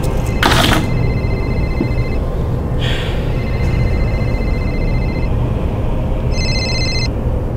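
Mobile phone ringing: a steady electronic ring sounds in two long stretches, then a shorter, higher tone near the end, over a low steady drone. Two brief swishing noises come about half a second and three seconds in.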